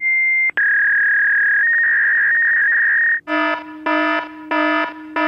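Loud electronic alarm tones: a short high beep, then a long steady high tone that steps up slightly in pitch partway through. From about three seconds in, a harsh pulsing buzzer alarm sounds about three times every two seconds.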